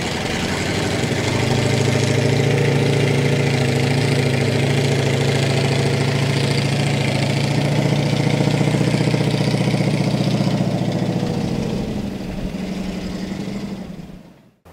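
Engine of a GAZ-66 army truck running steadily with an even hum while it tows a van on a rope; it drops in level near the end and then cuts off.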